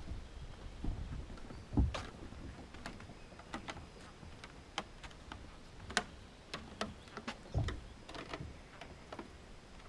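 Footsteps on a forest trail: irregular light crunches and clicks, with two heavier thuds about two seconds in and near the eighth second.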